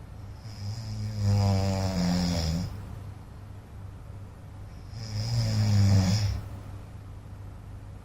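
A man snoring: two long snores, the first about half a second in and the second about five seconds in, each lasting around two seconds.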